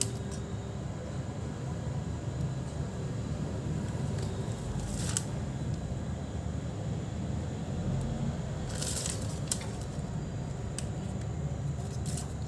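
Thin plastic wrapping crinkling briefly a few times as it is handled, over a steady low background rumble.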